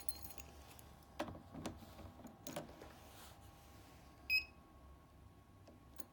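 A few clicks, then one short, high-pitched beep from a fire alarm control panel's buzzer about four seconds in, the panel registering a key press while stuck in its keyboard test.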